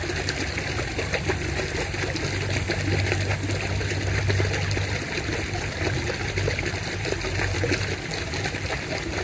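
Water running in a small clear-water irrigation ditch: a steady trickling, rushing flow.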